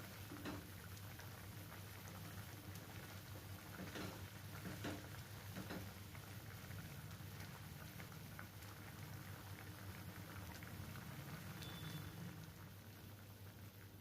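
Mango chutney cooking in a pan: a faint, steady crackling and bubbling, with a few sharper clicks between about four and six seconds in, over a low steady hum.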